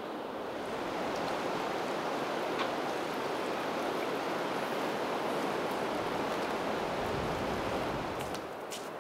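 Steady rushing of flowing water from a creek, easing off near the end, where a few faint sharp clicks begin.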